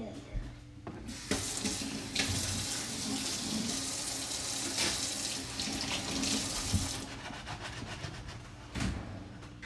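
Water running from a kitchen tap, an even rushing hiss that comes on abruptly about a second in and stops around seven seconds in.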